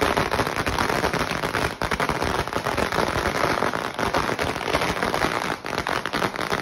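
Zena 5704 XL celebration cracker, a 3000-shot firecracker roll, going off as a dense, unbroken stream of rapid bangs.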